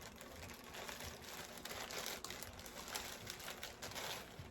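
Packaging rustling and crinkling with many small crackles as items are rummaged out of a box.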